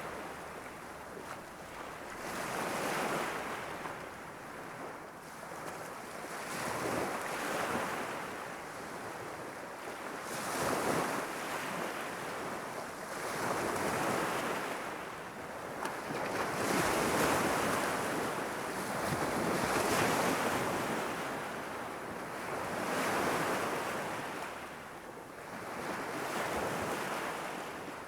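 Gentle Irish Sea waves lapping and washing against the shore, the surf rising and falling in swells about every three to four seconds.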